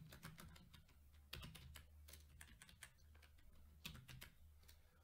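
Faint computer keyboard typing: a run of quick, uneven key clicks as a file name is typed.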